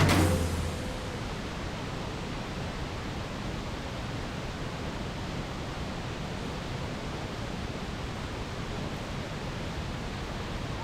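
Steady, even rushing of Panther Creek Falls' waterfall, with no rhythm or change in level. Background music fades out in the first second.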